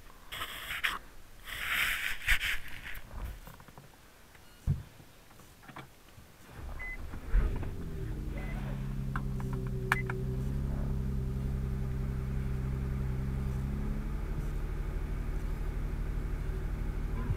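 Infiniti G37's 3.7-litre V6 started from inside the cabin: after a short chime the engine catches about seven seconds in and settles into a steady idle. Before that, rustling and a thump from moving about in the seat.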